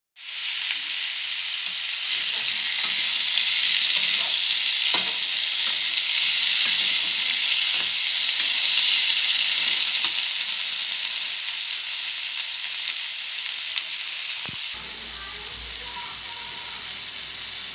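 Food frying in hot oil in a pan, a steady sizzle with occasional light clicks of stirring; the sizzle eases a little in the last few seconds.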